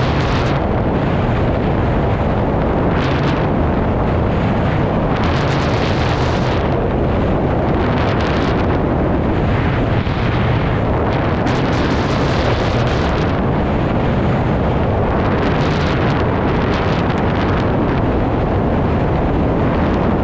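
Wind rushing over the microphone of a camera mounted on a hang glider in flight. A steady low rumble runs throughout, with surges of hiss every few seconds as the airflow gusts.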